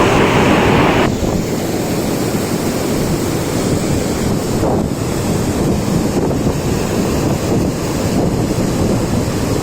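Steady rushing and buffeting of wind on the microphone, heaviest in the low end. A brighter hiss drops away abruptly about a second in.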